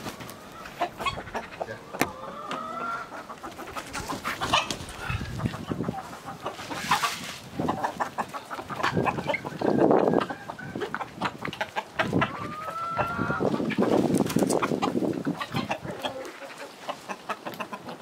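Domestic chickens clucking, with many sharp clicks scattered throughout. Two louder, longer calls come about ten seconds in and around fourteen seconds.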